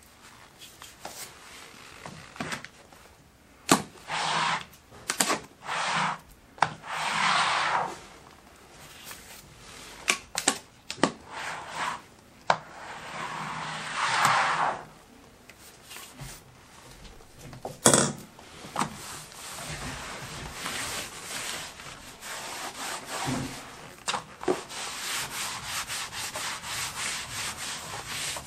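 A hand scraper dragged in separate strokes across wooden flooring, scraping off wet wax stripper and the old wax it has loosened, with a few clicks of the tool and one sharp knock about halfway through. In the second half a wet cloth rubs back and forth over the floor in quick, steady strokes.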